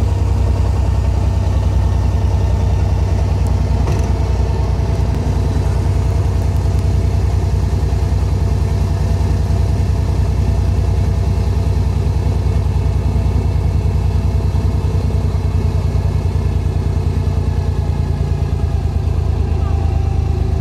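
Abra water taxi's inboard diesel engine running steadily, heard from on board: a loud, low, evenly pulsing engine note.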